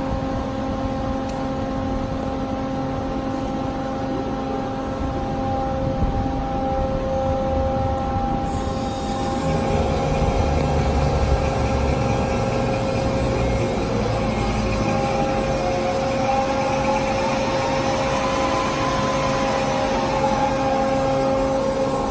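Ocean Terminator DCM-20/30 dual-mitering bandsaw running: a steady machine hum with a constant whine. It grows a little louder and fuller about ten seconds in.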